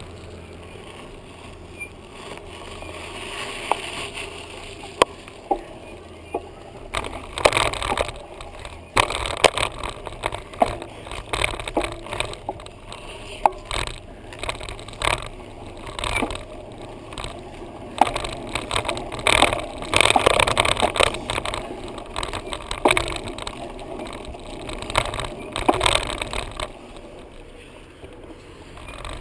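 Bicycle being ridden with a camera on a bike mount: a steady rumble of tyres and wind, then from about seven seconds in, frequent sharp knocks and rattles as the bike and mount are jolted.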